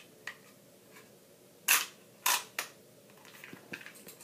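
Hard plastic Speed Stacks mini stacking cups clacking together as they are handled: two loud, sharp clacks about half a second apart near the middle, then a weaker one and a few faint taps.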